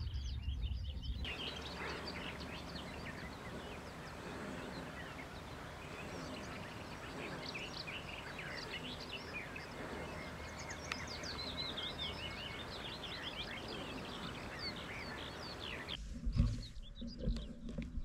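Many small birds chirping and twittering together over a steady outdoor hiss. Near the end this gives way to low rumbles and a few knocks.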